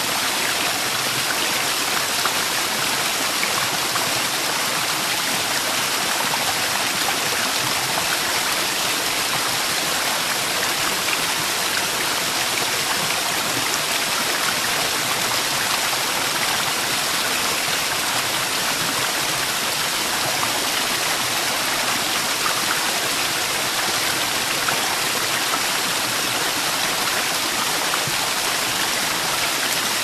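Waterfall, several cascades pouring into a plunge pool: a steady, even rush of falling water, heaviest in the hissing high end, with no let-up.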